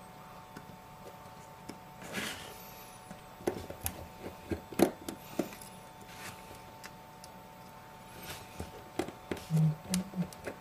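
Scattered small clicks, taps and light scrapes of a precision screwdriver working the two tiny screws that hold the metal plate over an iPhone 5S home button.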